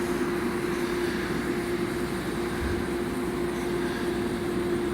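A steady machine hum: one constant mid-pitched tone over an even rushing noise, with no change in level.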